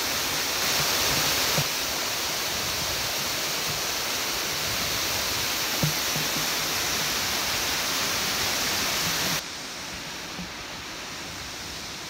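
Waterfall rushing close by, a steady loud hiss of falling water, which drops suddenly to a softer rush about nine seconds in.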